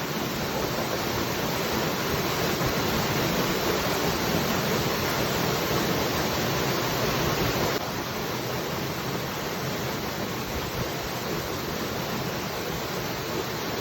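Waterfall: a steady rush of falling water, its level dropping slightly and suddenly about eight seconds in.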